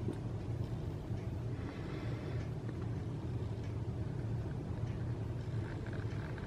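A steady low rumble with no distinct events, and faint higher hiss coming and going.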